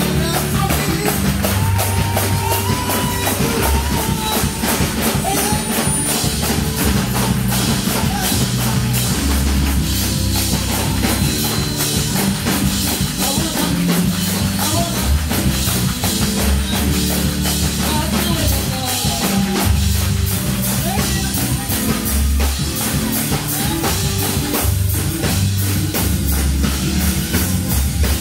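Live church praise-break music: a drum kit playing a fast, dense beat over deep bass notes, with hand-clapping and tambourines and voices singing along.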